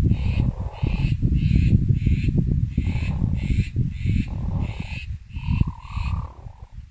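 A bird calling in a quick series of short, harsh notes, about two a second, over a loud low rumble.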